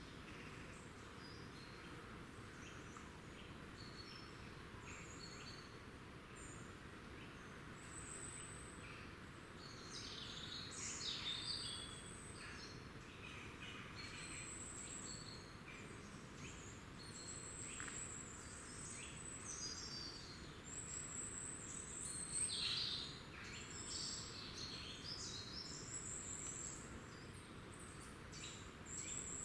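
Small woodland birds calling: many short, thin, very high-pitched calls, with louder clusters of chirps about ten seconds in and again about twenty-two seconds in, over a steady faint background hiss.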